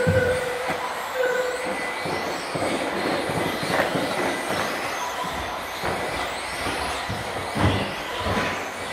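Several electric 2WD radio-controlled cars racing on an indoor track: a steady mix of motor whine and tyre noise, with a few sharp knocks from the cars hitting the track or barriers.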